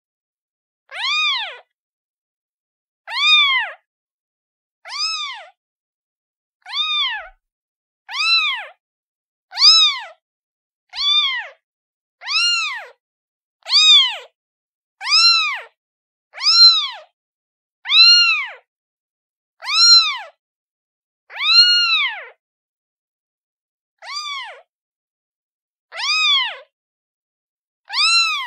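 Kitten meowing repeatedly: high, thin mews, each rising and then falling in pitch, about one every second and a half, with complete silence between them.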